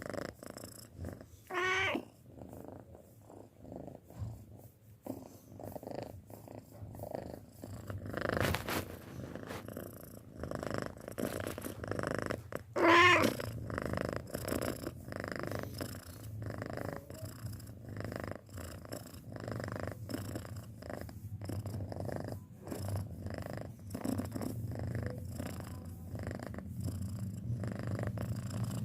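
Six-month-old domestic cat purring steadily in a fast, rumbling pulse. It twice gives a short, higher-pitched wavering call, about 2 seconds in and again about 13 seconds in.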